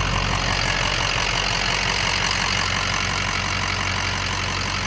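An engine idling steadily, an even low rumble with no change in speed.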